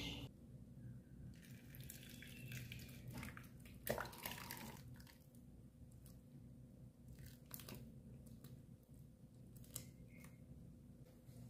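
Spatula scooping braised eggplant in sauce from a metal pan into a plastic bowl: faint scrapes, wet squelches and clicks, with one sharper knock about four seconds in, over a low steady hum.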